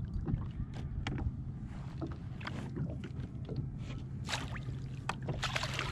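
Irregular clicks, knocks and a few short splashy hisses of a small flathead being reeled in and brought aboard a fishing kayak, over a low steady hum.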